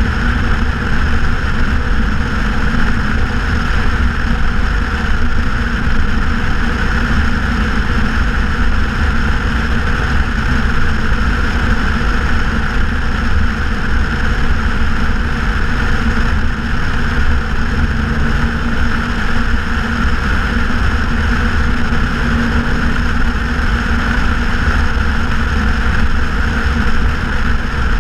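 2014 Ford Mustang GT's 5.0-litre V8 with a straight-piped exhaust, cruising at a steady speed: a deep, even exhaust drone that neither rises nor falls.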